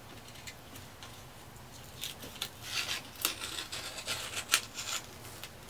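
Paper backing liner being peeled off a self-adhesive pad, crinkling and rustling in a run of short bursts with a few sharp crackles, starting about two seconds in.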